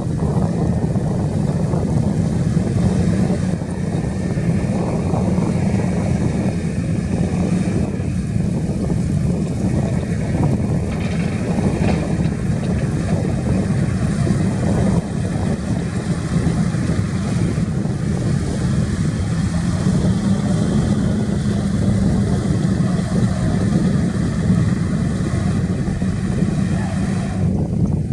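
Heavy diesel engine of earthmoving machinery running steadily under work, a dense, even low-pitched drone with no breaks.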